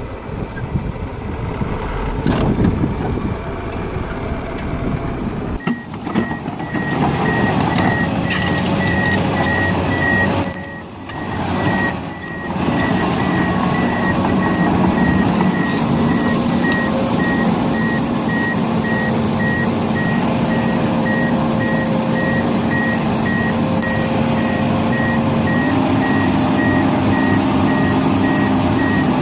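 A heavy vehicle's reversing alarm beeping at an even pace over its running engine. It comes in sharply about five and a half seconds in, after a rougher, noisier stretch of machine sound.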